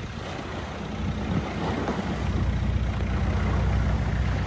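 Long-tail boat's engine running steadily with a low drone, under wind and water noise; it grows louder about a second in.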